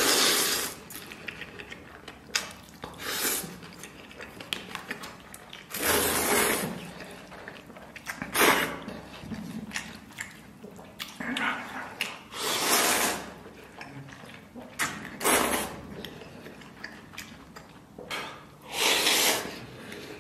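A person slurping saucy instant noodles into the mouth in about eight long, wet slurps every two to three seconds, with chewing between.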